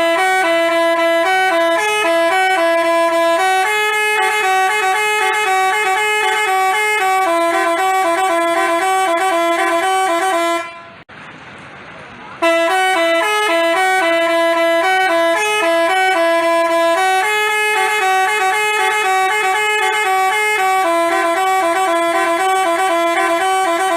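Basuri multi-tone 'telolet' bus horn playing a tune of stepped, held notes. It stops about 11 seconds in and starts the same tune again a second and a half later.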